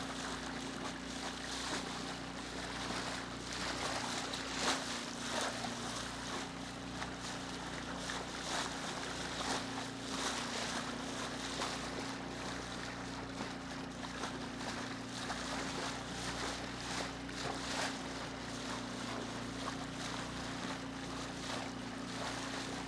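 A small boat's engine idling with a steady hum, over the irregular wash and splash of sea water.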